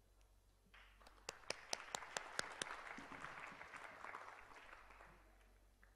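Audience applauding, starting under a second in with a few sharp nearby claps standing out, then dying away by about five seconds.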